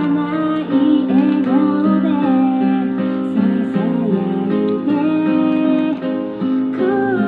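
Background music: a song with a sung melody over plucked guitar.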